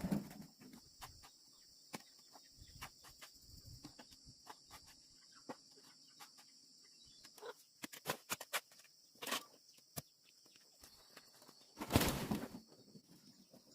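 Scattered light clicks and crackles of plants and pods being handled, with louder rustling bursts about nine and twelve seconds in, over a steady high insect drone.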